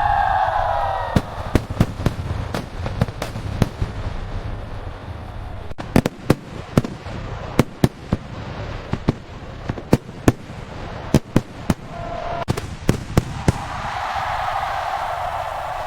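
Aerial fireworks shells bursting: sharp bangs at irregular intervals, often several a second in quick runs, with a steady rumble underneath.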